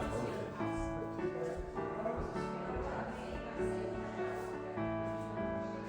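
Background music: a gentle instrumental track of held notes, changing every half second or so.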